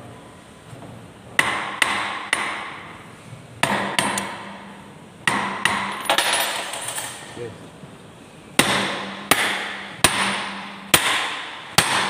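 Hammer blows on the steel parts of a press trimming die: about thirteen sharp metallic strikes in small groups of two or three, each ringing briefly. The die's cutting knives are being set into position.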